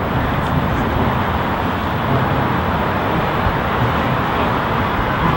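Steady noise of nearby road traffic mixed with wind rumbling on the microphone.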